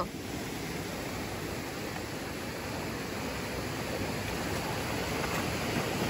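Steady rush of creek water pouring over a small rocky waterfall, getting a little louder near the end.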